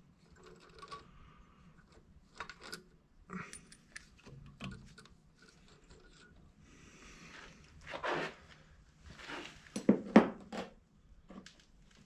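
Scattered metal clinks and knocks of hand tools and engine parts while the rocker shaft is being taken off a diesel tractor engine, with two sharp, loud knocks about ten seconds in.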